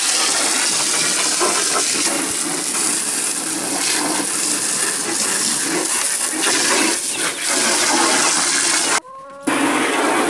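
Garden hose spraying a strong, steady stream of water into a ducks' water tub to rinse out the dirty water. The stream cuts off suddenly for about half a second near the end, then starts again.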